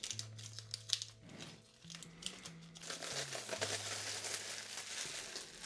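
Rustling and light clicks as a hardcover comic book collection is handled, growing into a steadier rustle about three seconds in, with quiet background music holding low notes underneath.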